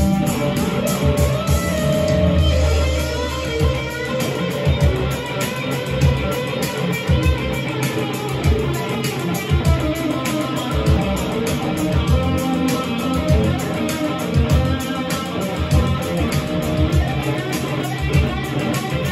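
Stratocaster-style electric guitar being played in an improvisation, a continuous run of picked notes and strummed chords.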